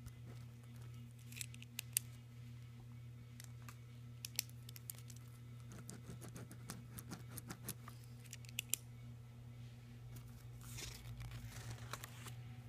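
Scattered small clicks and a brief rustle, like something being handled, over a steady low electrical hum.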